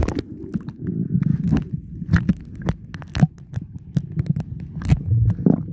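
Muffled thumping and rubbing on a hand-held phone's microphone, with irregular knocks and clicks over a low rumble, as if the microphone is covered or brushed.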